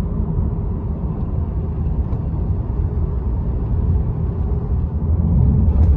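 Steady low rumble of a car driving on a paved road, heard from inside the cabin: tyre and engine noise.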